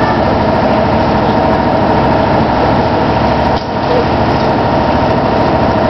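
Engine of a cruise boat running steadily underway: a loud, constant rumble with a brief dip in level about three and a half seconds in.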